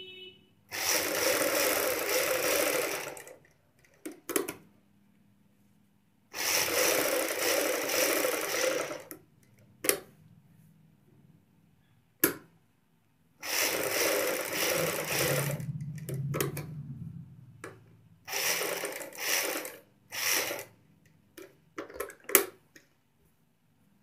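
Sewing machine running in four bursts of stitching, each a few seconds long, with pauses and sharp clicks between them as the work is guided and turned. It is edge-stitching along a turned neckline facing.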